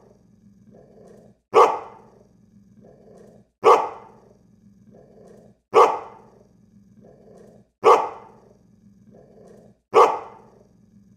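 A dog barking once every two seconds at a perfectly even pace, five loud sharp barks that each fade quickly, with a quieter low growl between them; the exact spacing points to a looped bark sound effect.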